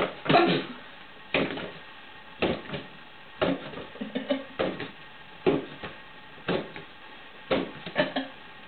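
A large ball being batted back and forth between a person's hands and a dog, with a sharp thump about once a second.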